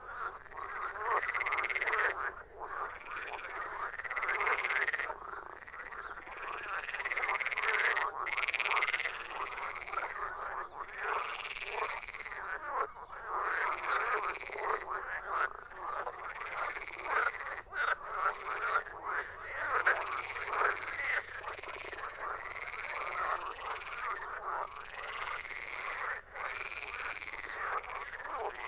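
A chorus of frogs croaking, the calls overlapping and repeating about once a second, each call rising and falling in pitch.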